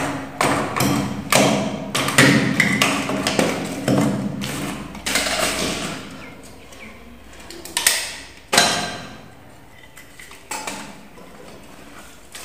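Irregular knocks, taps and clicks of a plastic power socket and its wall box being handled and fitted: a quick run of taps in the first few seconds, then a few louder knocks, the loudest about two-thirds of the way through.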